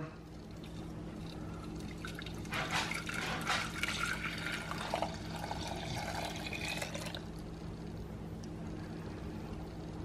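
Custard mixture of milk and custard powder being poured from a glass bowl into a saucepan. The pour is loudest for a few seconds from about two and a half seconds in, then fades to a faint trickle.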